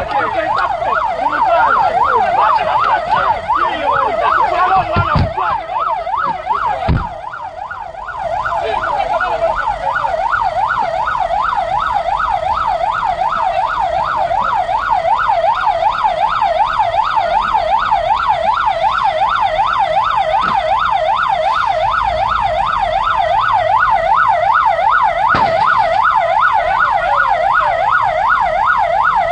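Emergency vehicle siren on a fast yelp, its pitch sweeping rapidly and evenly up and down without a break, with a couple of dull low thumps about five and seven seconds in.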